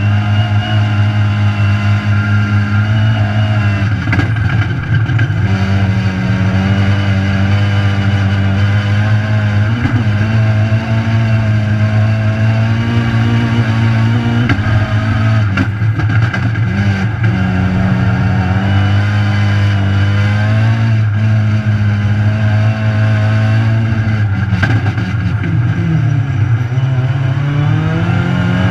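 Rallycross car's engine heard from inside the stripped cabin, running hard under load. Its pitch drops and climbs back several times as the car shifts and slows for corners.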